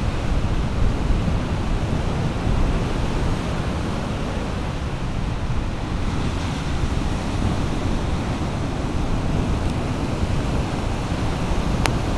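Hurricane surf breaking and washing ashore in a steady rush, with strong wind buffeting the microphone.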